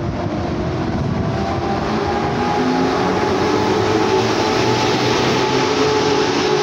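EP07 electric locomotive and its passenger coaches running past close along a station platform: a rumble of wheels on the rails with a steady hum over it, growing louder as the locomotive goes by.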